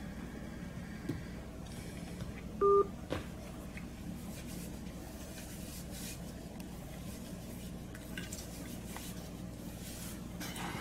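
A short electronic phone beep about three seconds in, two steady tones sounding together, as the phone call is ended, then a light click. Otherwise a low steady room hum.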